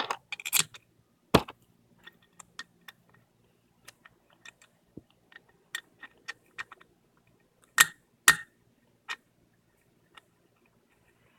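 Scattered small clicks and taps of screws and hand tools being handled while screws go into a steering wheel quick-release hub, with a louder knock about a second and a half in and two more around eight seconds in.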